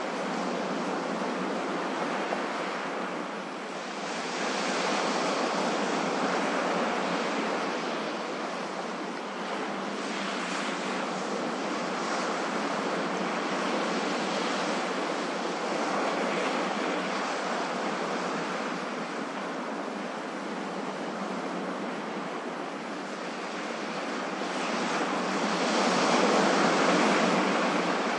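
Ocean waves, a continuous wash of surf that swells louder about five seconds in and again near the end.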